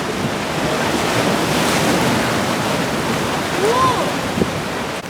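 Sea surf washing onto the beach, swelling and easing, with wind buffeting the microphone. A short call that rises and falls is heard about three and a half seconds in.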